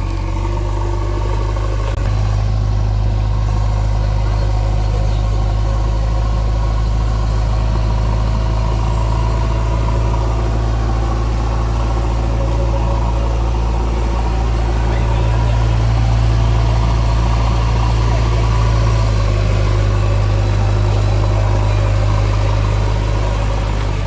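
Backhoe loader's diesel engine running steadily, swelling a little louder about fifteen seconds in before settling back.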